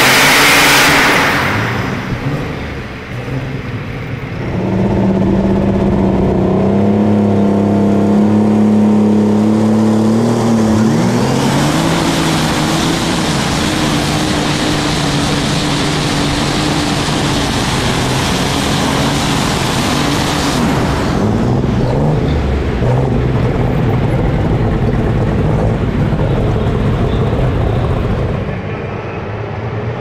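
Alcohol-burning Case IH light super stock pulling tractor running hard under load as it drags the weight-transfer sled. It holds a steady pitch at first, rises in pitch about eleven seconds in, and eases off near the end.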